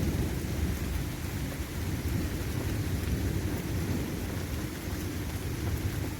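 Steady low rumbling roar from a severe thunderstorm overhead: the strange roaring sound that comes with little wind or rain at ground level.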